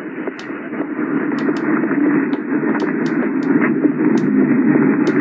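Sangean HDR-16 portable radio's speaker playing a weak, distant medium-wave AM station at night, mostly noise with the audio cut off above about 3 kHz, and sharp clicks scattered through. It grows louder about a second in as the bass is turned up on the tone control.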